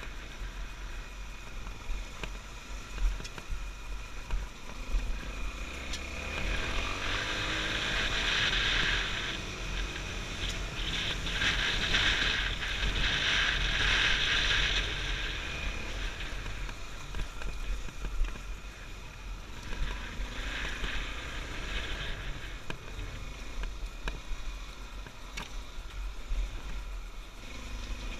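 Honda XR250 Tornado's single-cylinder four-stroke engine running under way on a rough dirt track, its pitch rising and falling as the throttle is worked. Two long stretches of rushing noise come in, about 7 and 12 seconds in.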